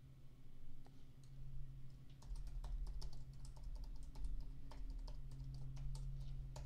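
Typing on a computer keyboard: irregular key clicks, starting about a second in and coming thicker after two seconds, over a faint steady low hum.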